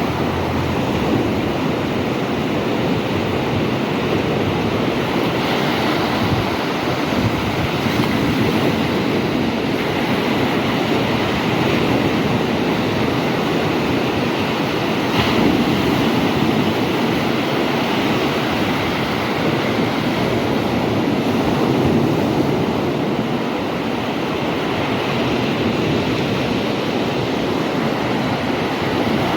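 Big sea waves breaking on the shore: continuous surf noise that swells a little as larger waves break, around the middle and again about two-thirds of the way through.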